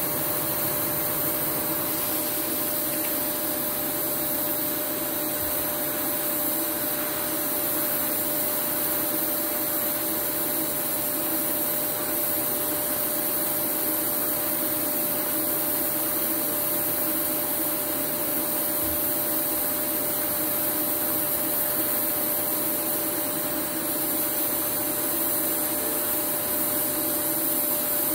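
Steady hiss of a TIG welding arc running an automatic weld on 6 mm steel, fed by a MultiPro TIG 220AD G-JBT inverter welder, with a steady hum tone underneath.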